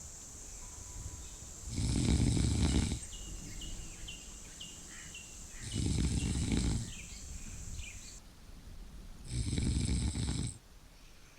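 A person snoring: three long, low snores about four seconds apart.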